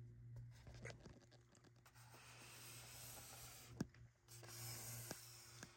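Near silence: faint rubbing and scratching from handling, with a few light clicks, the sharpest a little before four seconds in, over a low steady hum.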